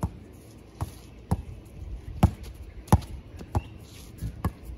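A basketball being dribbled on a paved driveway: about seven sharp bounces, unevenly spaced.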